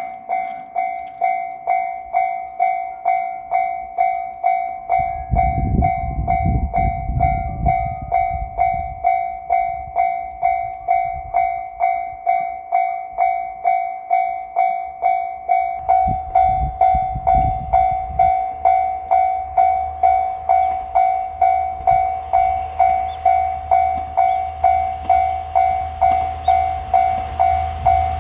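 Japanese level-crossing warning bell ringing steadily, about one and a half dings a second. From about two-thirds of the way through, the low rumble of an approaching JR Shikoku 1000-series diesel railcar builds beneath it, after two brief low rumbles earlier.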